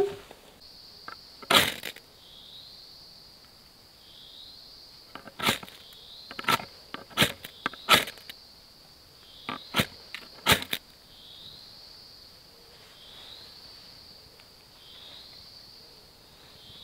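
A knife spine scraped down a ferrocerium rod, seven sharp rasping strikes throwing sparks onto dry fibre tinder, most of them in the first eleven seconds. Behind them a steady high insect drone with a falling sweep about every two seconds.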